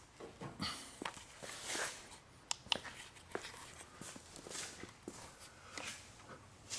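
Faint footsteps with scattered clicks, taps and rustles of things being handled.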